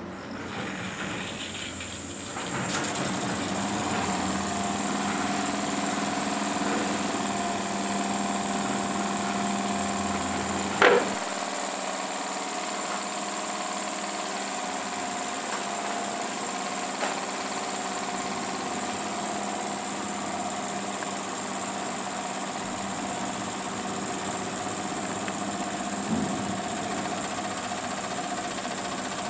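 Jensen #75 toy steam engine running steadily, driving a small motor used as a generator to light an LED; it picks up and grows louder about two seconds in as the steam valve is opened. A single sharp knock about eleven seconds in is the loudest sound, with fainter clicks later.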